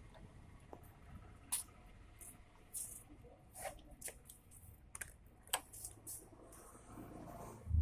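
Scattered light clicks and clinks of tools and metal parts being handled during motorcycle repair work, irregular and a dozen or so in number, with a louder low thud at the very end.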